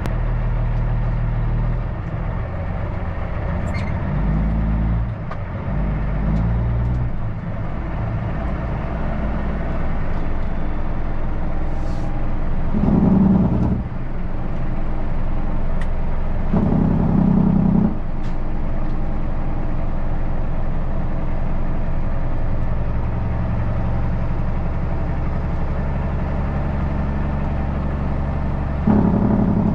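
Heavy truck's diesel engine running steadily, its pitch shifting a few times, with louder swells about 13 and 17 seconds in and again near the end.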